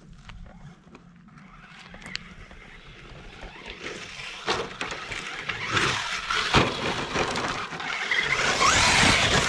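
Traxxas Slash 4x4 RC truck running on a 3S battery, driving across rocky dirt toward the listener. Its tires crunch and scatter gravel, with a few sharp knocks, and its electric motor whines. The sound grows steadily louder and peaks near the end as the truck comes close at speed.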